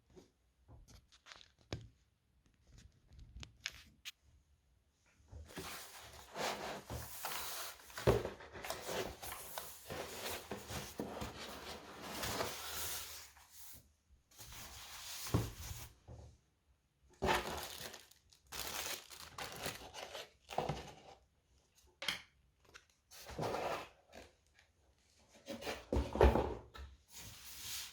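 Packaging being handled and pulled apart: stretches of rustling and crinkling broken by short pauses, with a few knocks, the loudest about eight seconds in and near the end.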